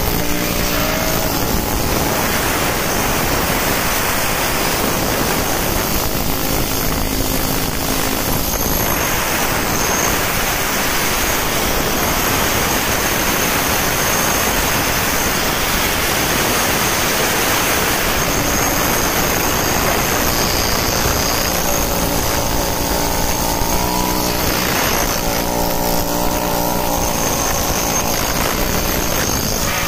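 Pneumatic chipping hammer hammering rapidly and continuously with its pointed chisel against steel weld seams, knocking slag and spatter off fresh fillet welds.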